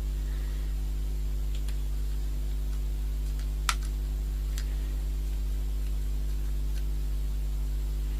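A few faint, separate plastic clicks and taps from an action camera's plastic waterproof case being handled, the sharpest a little past the middle, over a steady low hum.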